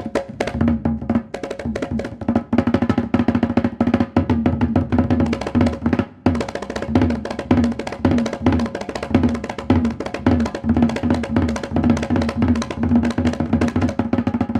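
Baleganjur, Balinese processional gamelan music: drums and clashing cymbals in a fast, dense rhythm, over repeating pitched gong-chime notes, with a brief break about six seconds in.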